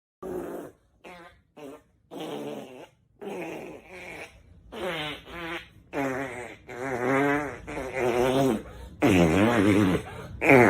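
A string of fart sound effects: short, faint ones first, then longer, louder ones, each with a wobbling, sputtering pitch.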